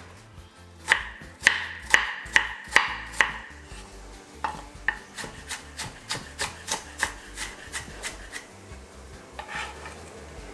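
Kitchen knife chopping a small piece of ginger on a wooden chopping board: sharp knocks about two a second for the first few seconds, then a quicker run of lighter strokes.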